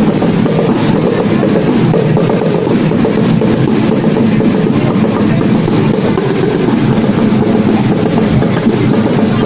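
Loud drum-led music, dense steady drumming with other instruments, without a break.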